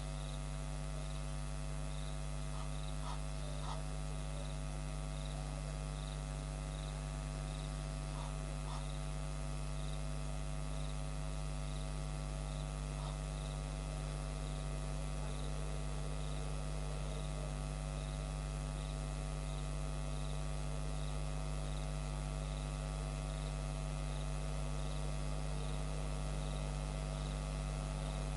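Steady electrical mains hum with many fixed tones above it. Behind it a faint high tick repeats a little faster than once a second, and a few brief faint calls come in the first half.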